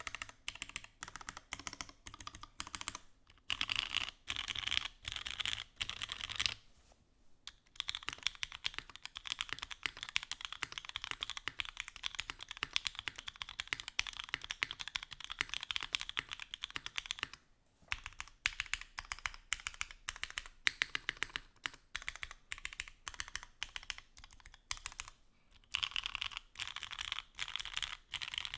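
Typing on a Mode Sonnet custom mechanical keyboard with Ultraglide switches on an aluminium plate: quick, continuous runs of key clacks. There is a short break about seven seconds in, where the build changes from top mount with an aluminium bottom to foam-stack mount with a copper bottom.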